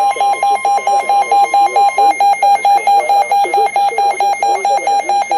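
Weather radio alarm: a steady 1050 Hz NOAA Weather Radio warning tone that stops about two seconds in, over a weather alert receiver's rapid beeping of about four to five beeps a second that cuts off at the end. It signals the start of a weather alert.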